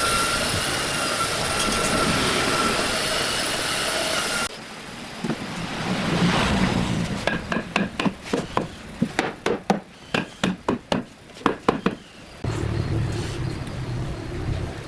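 A woodworking power tool runs with a steady whine and stops abruptly. This is followed by a quick run of knocks, two to three a second, as of strikes on wood, and then a low rumble.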